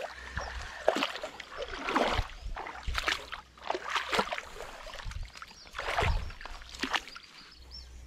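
Splashing and sloshing in shallow, weedy water, in irregular surges about once a second, as a hooked snakehead is drawn in through the grass.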